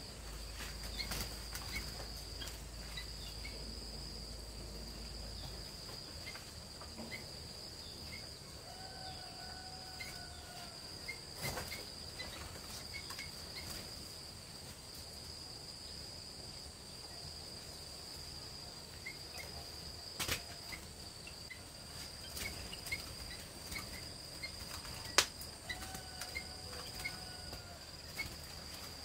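Steady, high-pitched chirring of insects, with scattered sharp clicks and knocks, one much louder than the rest near the end. Twice a short pitched call sounds over it.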